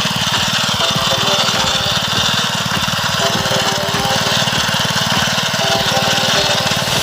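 Small engine of a hand tractor running steadily while plowing a rice field.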